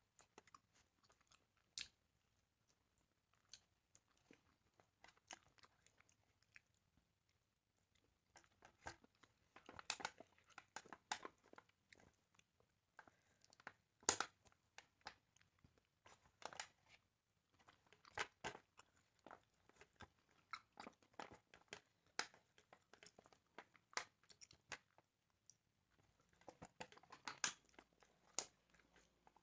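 A person chewing and biting grilled chicken, with wet mouth clicks and small crunches coming in irregular clusters between quiet gaps, the sharpest crunch about halfway through.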